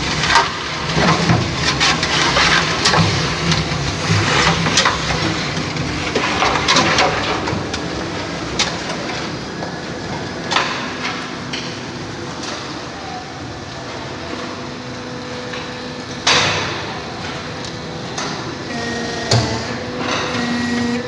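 An electric concrete-block press machine running, with repeated sharp metallic knocks and clatter. The knocks come thick and fast for the first several seconds, then settle into a steadier mechanical noise broken by a few single knocks.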